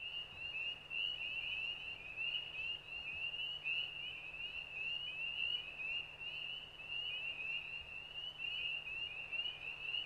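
Dense chorus of frogs calling: a continuous mass of short, high, overlapping peeping notes, with a faint steady low hum underneath.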